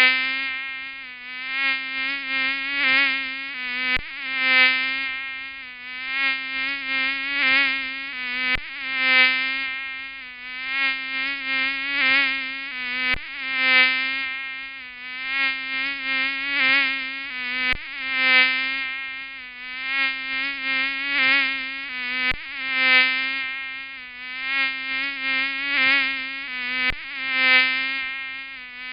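Mosquito wing whine: a thin, buzzing hum that wavers in pitch and swells and fades as the insect flies close and away. The same few seconds repeat as a loop about every four and a half seconds, each repeat marked by a faint click.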